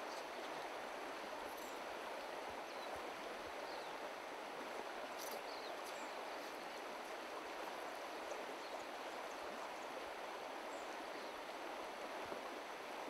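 Shallow stream flowing over stones and riffles, a steady rush of running water.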